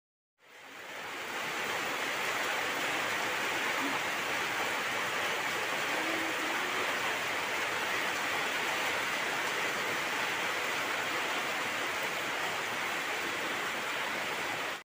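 Steady rain falling, an even hiss that fades in over the first second or so and then holds without change.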